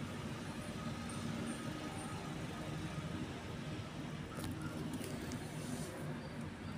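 Steady low rumble of road traffic, with a few faint clicks about halfway through.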